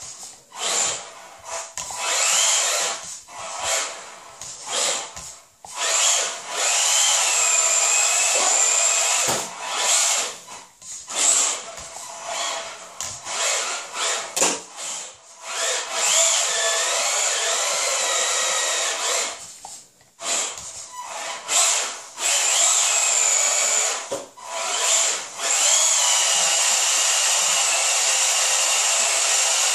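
Tamiya Frog RC buggy's electric motor and gearbox whining in stop-start throttle bursts, the pitch rising and falling as the car accelerates and spins doughnuts on a hard kitchen floor. Several bursts are held for a few seconds, with short breaks where the throttle is let off.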